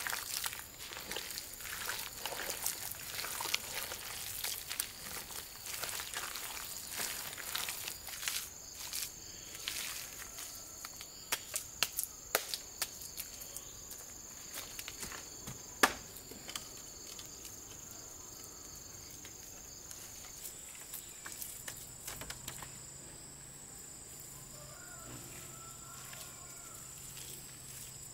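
Insects chirring in a steady high-pitched drone, with scattered clicks and knocks through the first half and one sharp click about sixteen seconds in.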